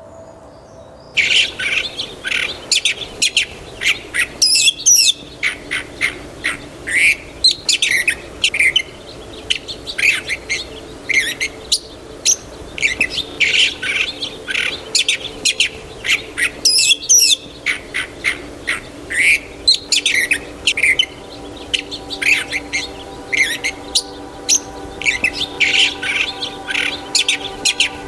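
Songbirds chirping and singing in a dense, continuous stream of short, high calls, starting about a second in.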